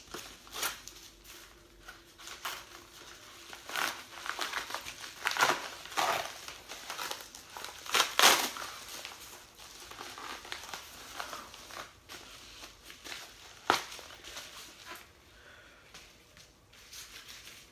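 A yellow padded paper mailer being torn open and crumpled by hand: irregular rustling, crinkling and tearing, loudest about eight seconds in, with one sharp click near the end.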